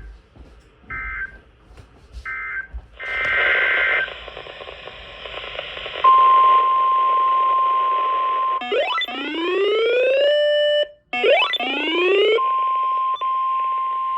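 Emergency Alert System signalling: short data-burst squawks in the first few seconds, then a steady high alert tone, broken by two rising siren-like sweeps, then the steady tone again.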